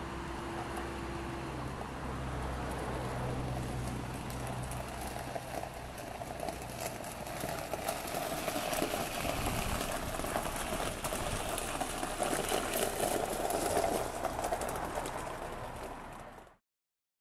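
Gen4 Suzuki Jimny's 1.5-litre four-cylinder petrol engine idling, then the car rolling off with a crunch of tyres on gravel that grows louder before the sound fades out near the end.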